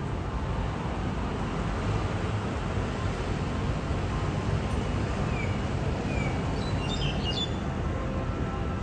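Steady rumble of city traffic, with a few short, faint bird chirps about five to seven seconds in.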